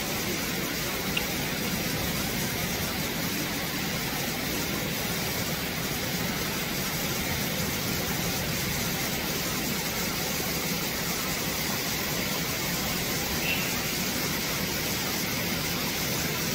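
Steady rush of a shallow stream flowing over rocks, with two brief high blips, one about a second in and one near the end.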